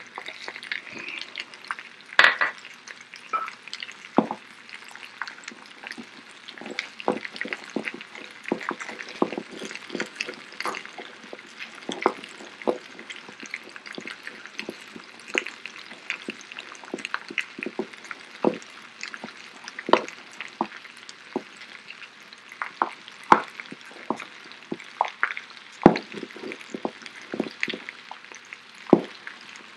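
Pestle grinding coriander seeds in a mortar: irregular clicking and scraping strokes, over a steady sizzle of potatoes frying in pans.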